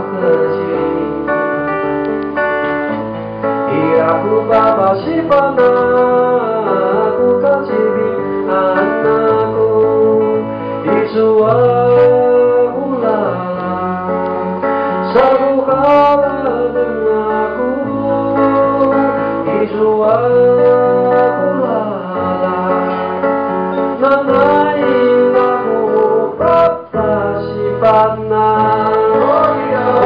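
Live acoustic song: a man sings lead over a strummed acoustic guitar, with other men singing backing vocals.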